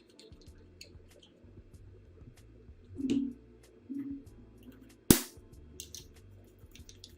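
Soft background music under a series of small clicks and handling noises, with one sharp, loud click about five seconds in.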